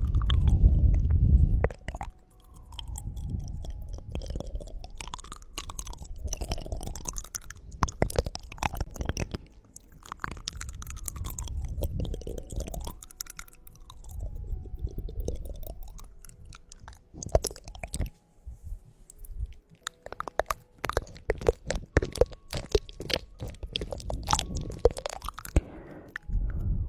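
Close-miked mouth sounds: many sharp, wet tongue and lip clicks, with low muffled rumbles at times, loudest near the start.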